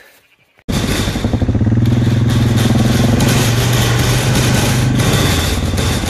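Quad bike (ATV) engine running steadily as it is driven, towing a wheeled lamb creep feeder. The engine comes in abruptly just under a second in.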